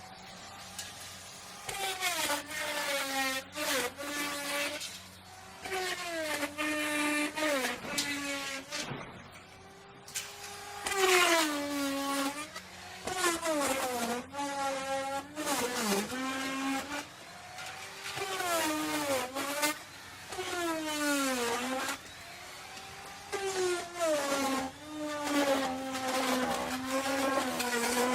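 Electric wood router running and cutting wood. Its motor whine drops in pitch each time the bit bites into the wood and climbs back between cuts, over and over, every couple of seconds.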